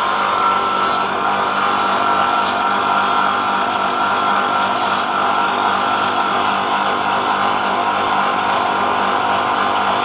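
Small bench grinding wheel running wet, grinding the edge of a watch glass to round it to size: a steady hiss with a steady whine through it.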